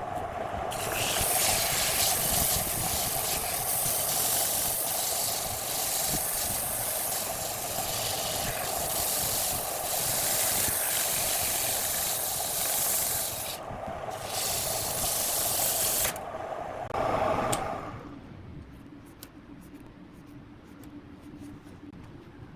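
Sandpaper rubbing on wood as it spins on a lathe: a steady hiss over the lathe's running hum. It stops briefly near the middle, quits about sixteen seconds in, and after a short louder moment only a faint hum is left.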